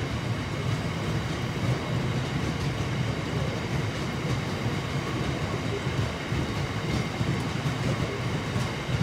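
Freight train of bogie hopper wagons rolling past on the track: a steady rumble of wheels on rail, with occasional light clicks.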